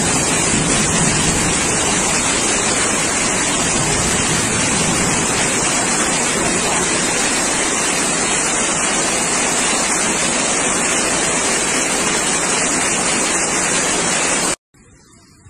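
Muddy floodwater rushing through a city street: a loud, steady rush of water with no let-up, cutting off abruptly near the end.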